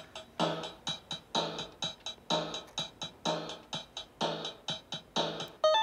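Circuit-bent electronic keyboard playing a drum-machine rhythm, a heavy beat about once a second with quick ticks between. Near the end it switches abruptly to a steady, buzzing glitch chord as the newly soldered toggle switch brings in the bent sound.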